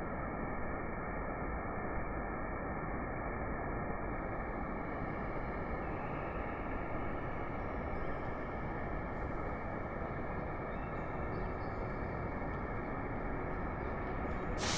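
Steady, dull rush of a waterfall, an even noise that does not change.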